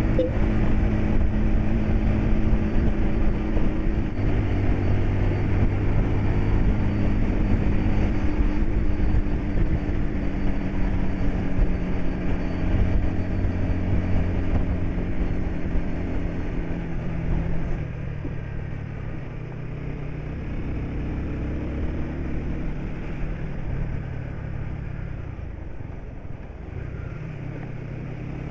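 Bus engine running steadily under way, heard from inside the cab along with low road rumble. It eases off and gets quieter about two-thirds of the way through.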